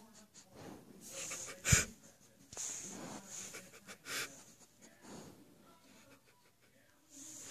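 Dog sniffing right at the phone's microphone in short snuffling bursts, with a single loud knock a little under two seconds in.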